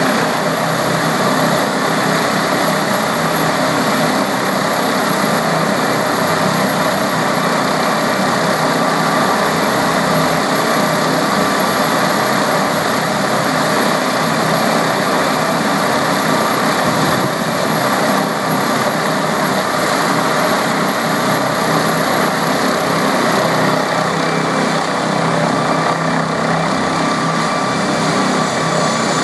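Air ambulance helicopter's turbine engines and rotor running loud and steady, with a thin high turbine whine that rises in pitch near the end.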